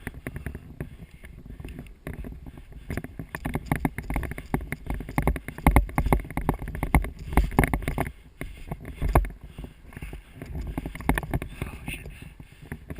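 Irregular crunching, snapping and knocking of a person moving through dry brush and sticks, with heavy bumps on the body-worn microphone, loudest in the middle.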